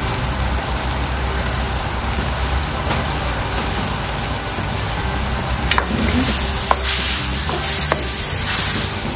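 Sliced zucchini and vegetables sizzling as they sauté in oil and sauce in a pan. From about six seconds in, a utensil stirs them, with short scrapes against the pan.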